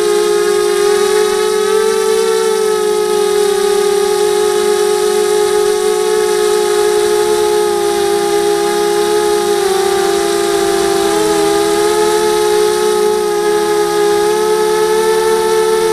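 A 250-size FPV racing quadcopter's electric motors and propellers whining, heard from on board the quad. The pitch holds steady and wavers slightly with throttle, dipping briefly about ten seconds in.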